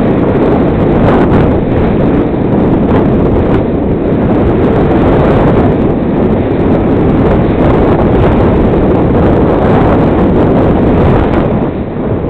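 Loud, steady wind rush over the microphone of a camera riding on a flying RC airplane, easing slightly near the end.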